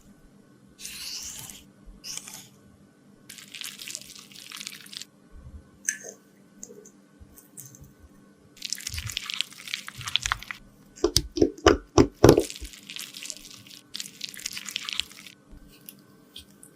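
Close-up handling sounds of lipstick being worked on: several hissing scrapes, each a second or two long, and a quick run of sharp taps or clicks about two-thirds of the way through, the loudest moment.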